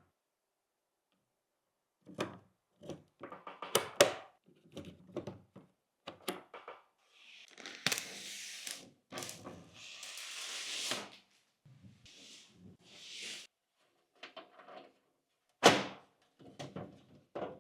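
Computer parts being handled and fitted during a PC build: a string of sharp clicks and plastic or metal knocks, with a few longer hissing scrapes or rustles around the middle.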